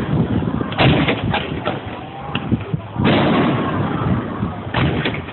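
Fireworks going off: a quick run of sharp bangs, then a louder, longer burst about three seconds in that dies away, with more bangs near the end.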